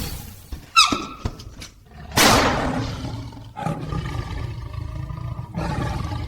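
An animal call: a short falling cry about a second in, then a loud, harsh roar about two seconds in that fades away over about a second, followed by a low steady rumble.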